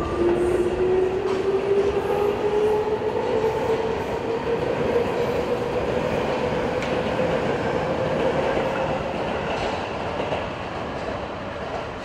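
Electric commuter train passing through a level crossing, its motor tone rising slowly and steadily in pitch as it gathers speed, then easing off near the end as the train clears.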